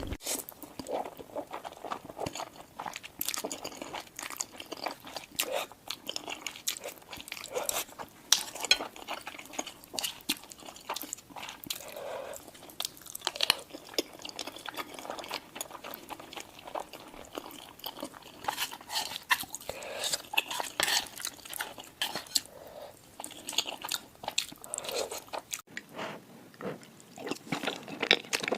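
Close-up chewing and biting of crunchy food: irregular crisp crunches and wet mouth sounds.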